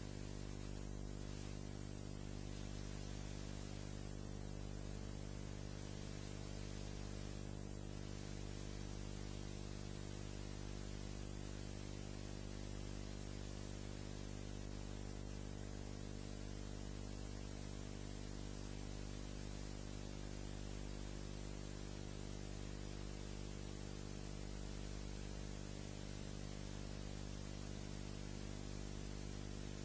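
Steady electrical mains hum with an even layer of hiss, unchanging throughout.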